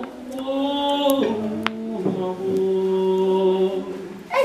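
A man's voice singing unaccompanied without words: a few long held notes, each stepping a little lower than the last, with a small click in the middle.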